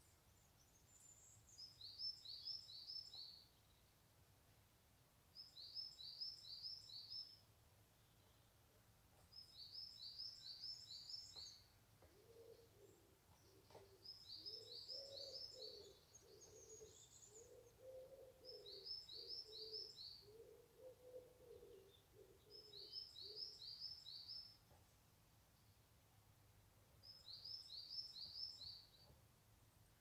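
A small songbird singing: a short phrase of four or five quick high notes, repeated about every four seconds. A lower series of calls from another bird runs through the middle.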